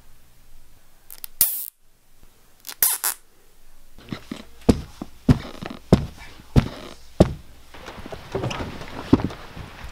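Two sharp bangs, then a run of heavy thuds about every half second, followed by a few more irregular knocks.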